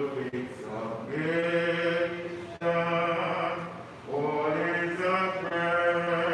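A few voices singing a slow song together in long, held notes, in phrases of one to two seconds with short breaths between.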